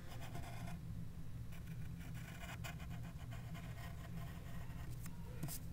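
Pencil scratching on paper in short, faint strokes, over a steady low hum.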